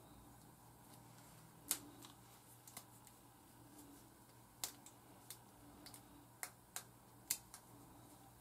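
Faint, irregular little clicks and snaps, about a dozen over several seconds, from long fingernails and small rubber bands as wet locs are worked and banded by hand, over a low steady room hum.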